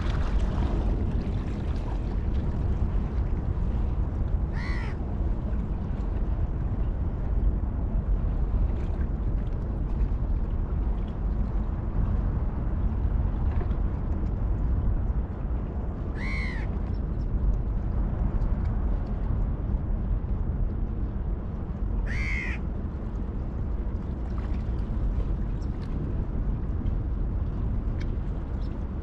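A bird gives three short calls, several seconds apart, over a steady low rumble of wind and lapping harbour water.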